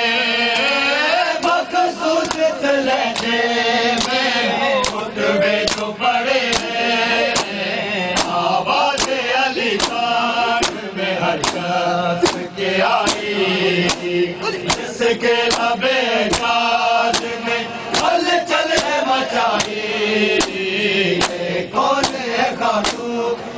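A group of men chanting a noha (mourning lament) in unison, with steady hand slaps on bare chests (matam) keeping time, a little more than one stroke a second.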